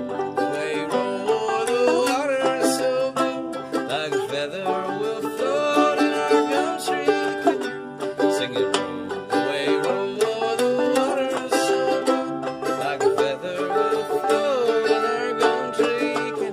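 Instrumental old-time string music: a fiddle playing a sliding melody over quickly plucked banjo.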